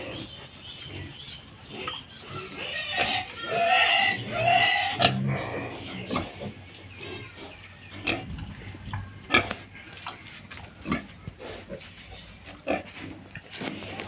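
Young black pigs grunting and squealing, with two loud drawn-out squeals about four seconds in, followed by scattered short grunts.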